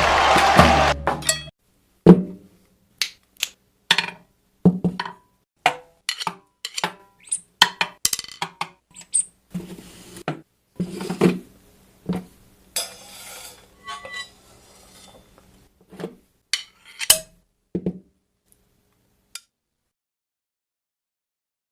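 Cartoon sound effects: a drumbeat ends, then a string of separate short knocks, clicks and clinks at irregular intervals, with a couple of brief high squeaks and a short hiss midway, thinning out near the end.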